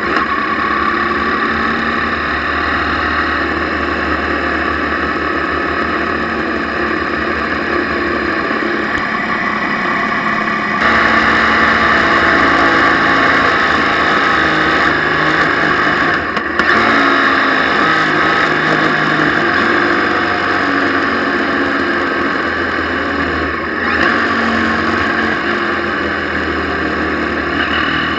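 Motorcycle engine running under way with wind rushing over the bike-mounted camera. The sound changes abruptly and gets louder about 11 seconds in.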